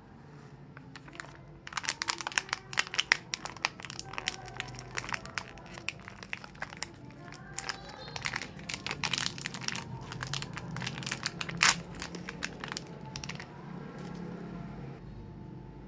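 Plastic wrapper of a gummy candy packet crinkling and crackling as hands squeeze it and tear it open. Dense crackles start about two seconds in and thin out near the end.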